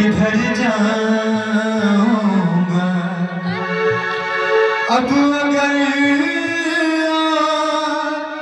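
A ghazal performed live: a man singing into a microphone over sustained keyboard tones, with hand-drum strokes accompanying.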